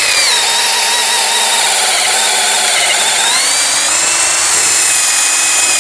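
Cordless brushless drill driving a 19 mm auger bit through meranti hardwood in its high-speed gear: a steady loud motor and gearbox whine under load. The pitch sags around two to three seconds in as the bit bites harder, then climbs again.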